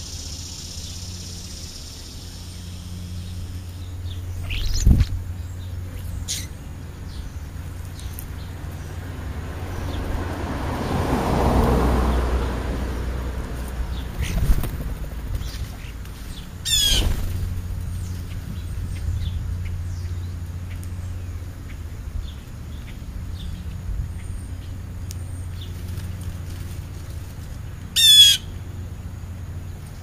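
Small birds calling at an outdoor feeding spot: scattered short chirps, and twice a loud, harsh run of rapid notes, the loudest sounds heard. A low steady hum runs underneath, and a rushing sound swells and fades around the middle.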